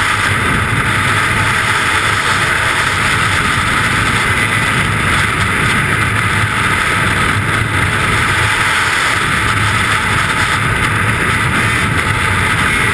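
Loud, steady rush of freefall wind buffeting a helmet-mounted camera's microphone.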